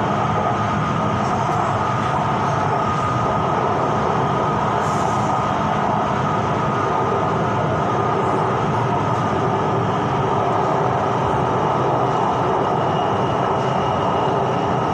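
Elevated electric metro train of the Bangkok BTS Green Line heard from inside the carriage while running between stations: a steady rumble of wheels on rail with a steady high whine. A fainter, higher tone joins near the end.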